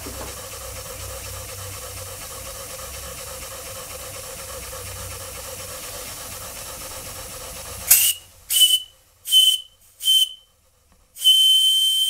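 Jensen model steam engine running with a steady steam hiss, then its small PM Research brass steam whistle blown from about eight seconds in: four short high-pitched toots, then a longer blast near the end.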